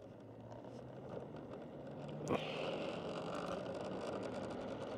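Vehicle moving off: engine and road noise growing louder over the first two seconds, then steady, with a single sharp knock a little over two seconds in.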